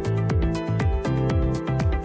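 Electronic background music with a steady beat: deep kick drums dropping in pitch under held synth chords.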